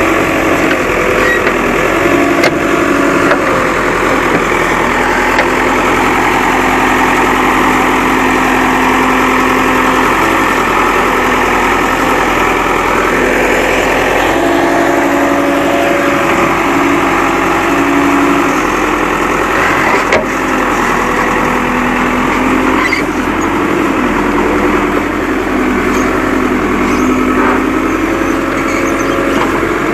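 Backhoe loader's diesel engine running and working under load, its pitch rising and falling every few seconds as the throttle and load change.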